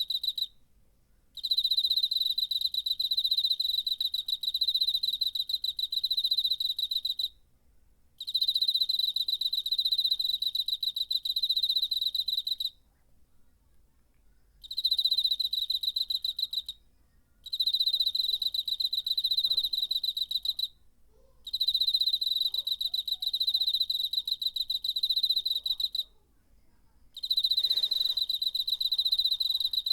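A cricket singing: long trills of rapid, even pulses on one high pitch. The trills last several seconds each and are broken by pauses of about a second, with a longer pause of about two seconds some thirteen seconds in.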